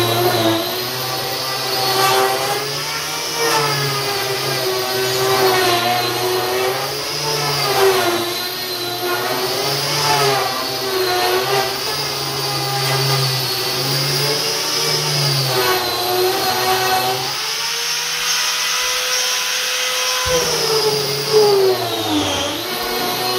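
Eibenstock EOF 100 electric paint stripper running as its cutter head strips paint and varnish off pine boards, its motor pitch dipping and rising every second or two as it is pressed into the wood. A dust-extraction vacuum draws through the attached hose. About three quarters of the way in, the pitch holds steady for a few seconds before the dipping resumes.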